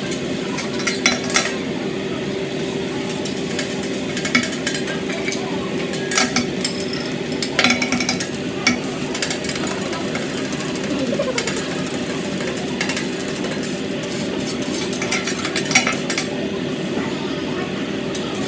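Metal spatulas clacking and scraping on a hot teppanyaki griddle as a chef chops and turns fried rice and egg, in irregular sharp clacks, over food sizzling and a steady low hum.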